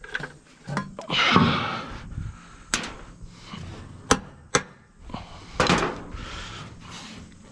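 Work noise: three sharp knocks, like tools striking metal, between two rushing, scraping stretches about a second long, one near the start and one past the middle.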